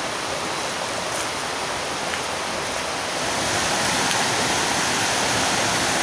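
Steady rushing of a small woodland stream flowing over rocks, louder from about three seconds in.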